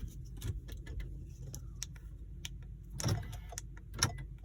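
Light clicks and taps of a car key and programming gear being handled inside a car, with two louder knocks about three and four seconds in, over a steady low hum.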